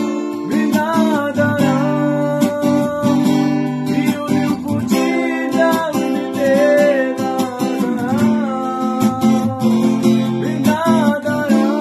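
A man singing a song to a strummed acoustic guitar.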